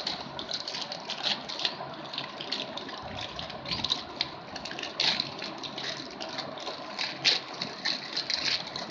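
Plastic courier mailer bag rustling and crinkling as hands open it and rummage inside, in irregular bursts of crackles.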